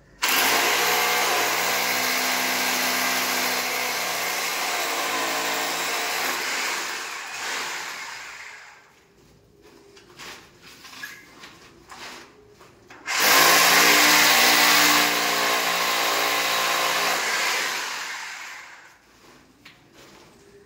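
Corded handheld electric drill boring into the ceiling, run twice: first for about eight seconds, then after a short pause for about six. Each time its whine falls away as it spins down.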